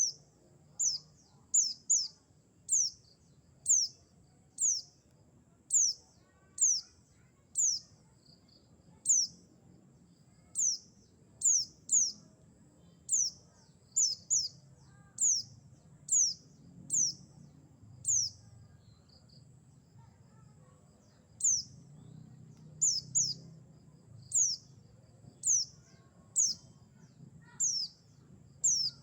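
Pleci buxtoni white-eye calls played as a lure: a short, high chirp sliding downward, repeated about once a second and sometimes in quick pairs, with a pause of a few seconds a little past the middle.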